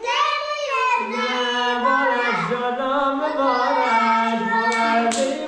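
Voices singing a song with children, a steady melody on long held notes; hand claps start near the end.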